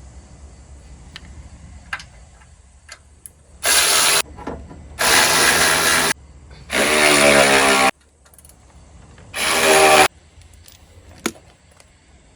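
A power tool spinning off 13 mm bolts, run in four short bursts of about a second each.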